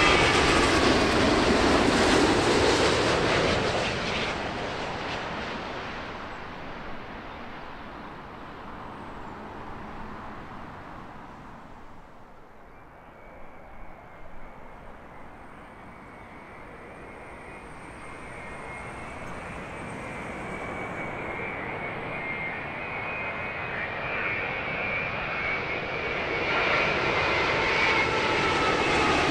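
Jet airliners on final approach passing low overhead. The first one's engine noise fades away over about twelve seconds, then the next arrival closes in, its engines' high whine growing steadily louder.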